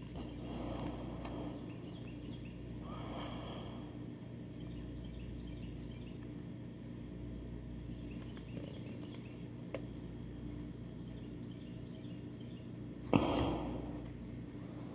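Outdoor background ambience: a steady low hum with faint high chirps. About thirteen seconds in comes a sudden loud bump, followed by about a second of rushing noise.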